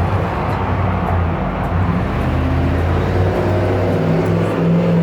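Busy street traffic: a motor vehicle's engine running with a steady low hum, growing slightly louder near the end.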